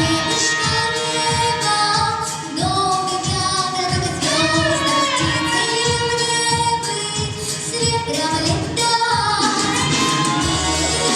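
A female voice singing a pop song with held, gliding notes over a backing track with a steady beat.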